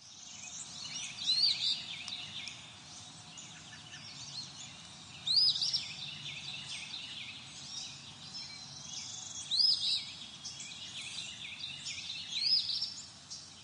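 Recorded birdsong sound effect: birds chirping and calling over a steady background hiss, with a louder call standing out four times, about every four seconds.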